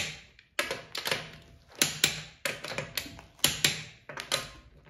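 Torque wrench on the wheel's lug nuts, giving about ten sharp metallic clicks, unevenly spaced and some in pairs, as the front wheel is tightened to 76 foot-pounds.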